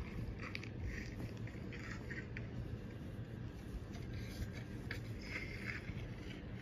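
Fabric pillowcases rustling and rubbing in irregular short scratches as hands handle them, over a steady low hum.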